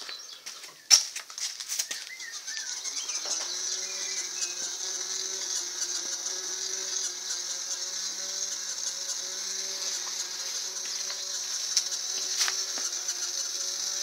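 Small electric motor in a homemade plastic-owl bird scarer starting about two and a half seconds in, then running steadily with a hum and a whir as it spins feather-tipped wooden arms around the owl. A few sharp knocks come in the first two seconds.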